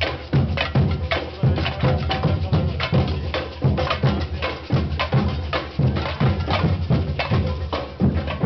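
Samba band drumming: large surdo bass drums beating a steady pulse under fast, busy strokes from smaller stick-played drums.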